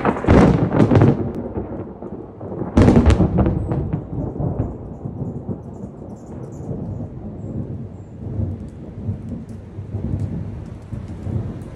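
Thunder during a rainstorm: a loud crack at the start and another about three seconds in, each running on into a long rolling rumble that slowly dies down, with rain falling.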